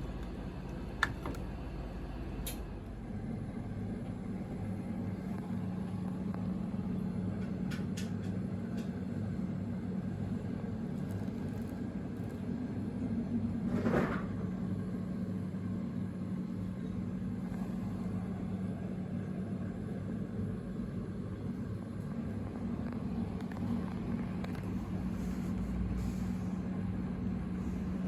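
A steady low mechanical hum, with a few faint clicks early on and one brief louder noise about halfway through.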